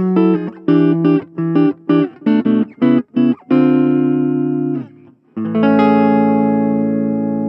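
Gibson Les Paul Standard electric guitar played clean through a Blackstar Fly 3 mini amp: short, clipped chords about three a second, then a held chord, a brief break, and a final chord about halfway through left to ring and slowly fade.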